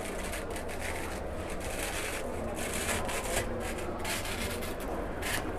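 Velcro fastener on a trimming tumbler's mesh drum being peeled open: a run of short rasping rips over several seconds.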